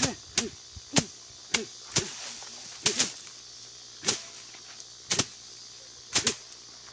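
Soybean plants being beaten to thresh out the beans: about a dozen sharp strikes at irregular intervals, roughly one a second, some coming in quick pairs.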